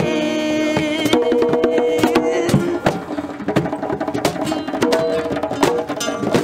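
Acoustic guitar and hand drums, conga and djembe, playing together in a live jam, with held guitar notes under a steady stream of slapped drum hits. The drum hits stand out more from about three seconds in.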